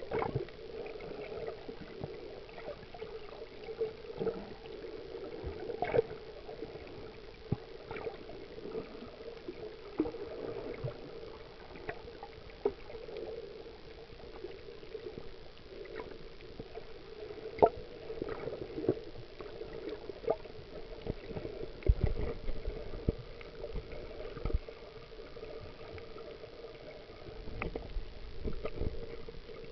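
Underwater ambience heard through an action camera's waterproof case: a steady muffled water hum with scattered sharp clicks and pops, and a few low thumps about twenty-two seconds in and again near the end.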